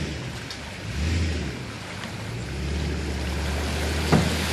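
Boat outboard motor running at idle, a steady low hum that swells slightly a couple of times, with a single knock about four seconds in.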